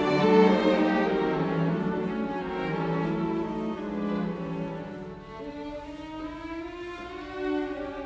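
Slow instrumental background music, likely bowed strings such as violin and cello, playing long held notes that grow quieter about halfway through.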